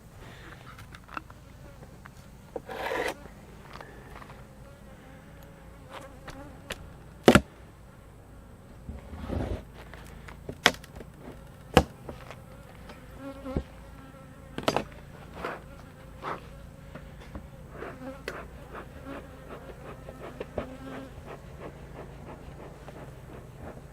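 Honey bees buzzing steadily around an open hive, with sharp clicks and knocks now and then, the loudest about seven seconds in.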